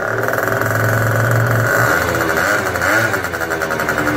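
A motorcycle-type engine running and revving loudly, its pitch rising and falling a couple of times near the middle, used as an intro sound effect.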